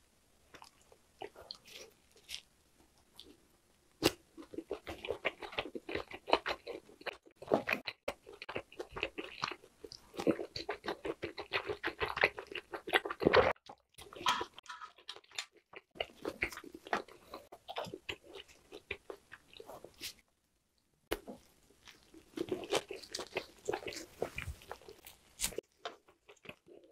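Close-miked chewing of grilled lamb skewer meat: wet, crackling bites and chews in long runs with short pauses, faint for the first few seconds.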